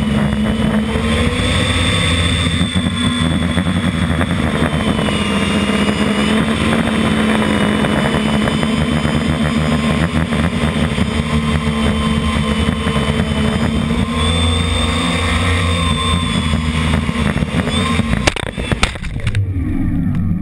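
FPV multirotor drone's electric motors and propellers whining steadily in flight, heard from the onboard camera, the pitch wandering as the throttle changes. Near the end a few knocks as it touches down, then the motors spin down with a falling pitch.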